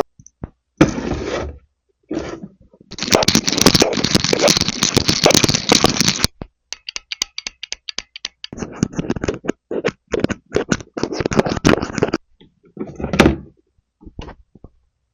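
Plastic toy refrigerator and its small toy pieces being handled close to the microphone. Short bursts of scraping and rattling come first, then a long run of quick clicks and taps, with one last brief rattle near the end.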